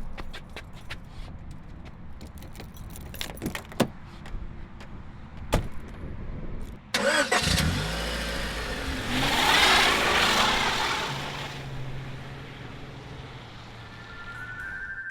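Scattered clicks and knocks, then about seven seconds in a car engine starts with a sudden burst, revs up loudly, and settles into a steady low run that fades toward the end.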